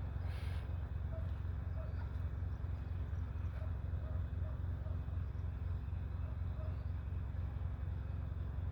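Outdoor night ambience: a steady low hum, with faint short sounds from far off scattered through it.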